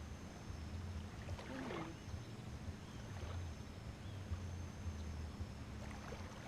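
Low, steady motor hum that swells and eases, with a few faint clicks.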